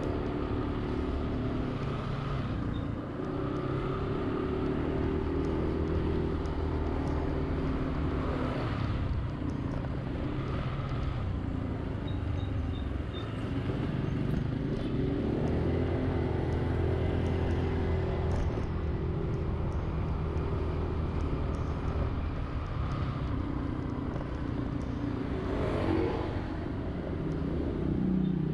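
Honda Zoomer-X scooter's engine running as it rides along a city road, its drone rising and falling in pitch with speed, over steady surrounding traffic noise. A short rising engine note from a vehicle speeding up comes near the end.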